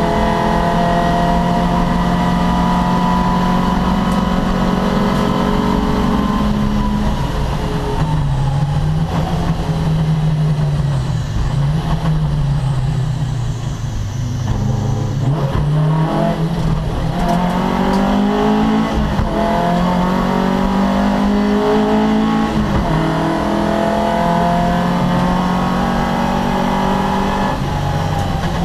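Race car engine at high revs, its pitch falling as it comes off the throttle or shifts and then climbing again as it accelerates through the gears.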